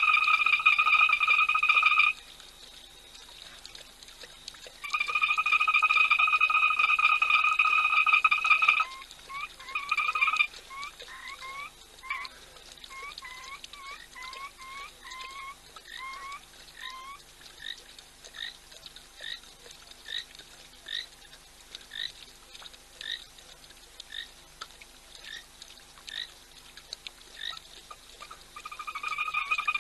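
Frogs calling at night: a loud, steady, high trill that breaks off twice and resumes near the end. In the gaps, single short rising chirps repeat about once or twice a second.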